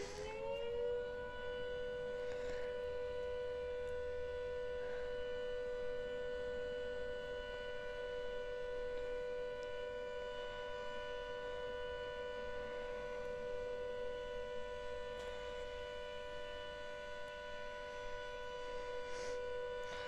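Two-tone siren on test, finishing its wind-up about a second in, then holding a steady two-note chord.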